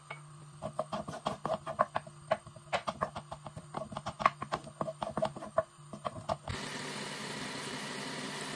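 Wooden spoon stirring chopped onions and peppers in oil in a granite-coated pot: a quick, irregular run of taps and scrapes against the pot. About two-thirds of the way through it gives way suddenly to a steady hiss.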